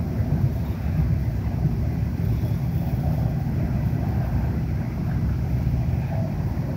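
A long CSX coal train's cars rolling along the track: a steady low rumble of wheels on rails.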